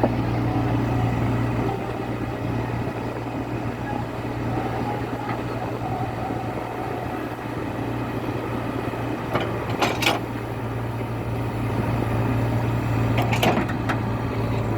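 Diesel engine of a JCB excavator running steadily with a constant low hum, with a few short clanks about ten seconds in and again near the end.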